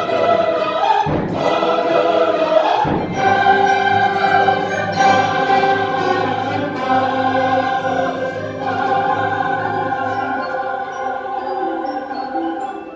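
Large mixed choir singing long held chords, dying away near the end.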